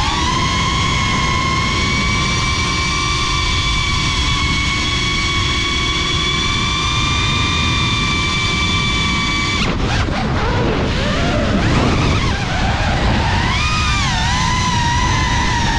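Quadcopter drone's brushless motors whining at a steady pitch, picked up by the onboard camera. About ten seconds in the whine breaks up and wavers in pitch, then dips and rises again near the end.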